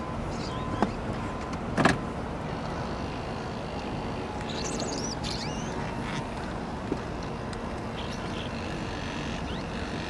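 Steady low background rumble, with two sharp knocks about one and two seconds in and a few short, high, sliding bird chirps around the middle.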